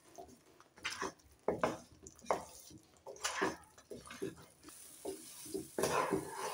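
A spatula stirring and scraping a thick semolina-and-potato dough around a metal pan, in irregular strokes about twice a second.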